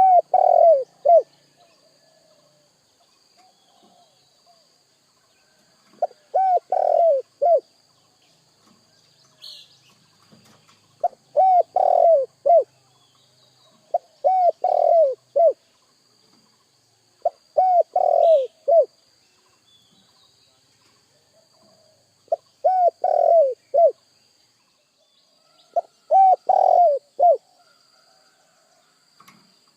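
Spotted dove (tekukur) cooing: a phrase of three or four quick coos, repeated about every three to four seconds, seven times.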